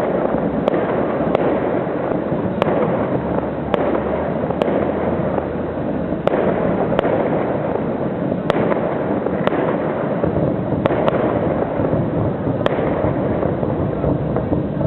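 Fireworks display going off steadily: a continuous wash of explosions with sharp individual bangs about once a second at irregular intervals.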